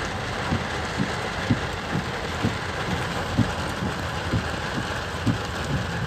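Heavy torrential rain pelting a car's roof and windshield, heard from inside the cabin as a steady hiss, with dull low knocks about twice a second.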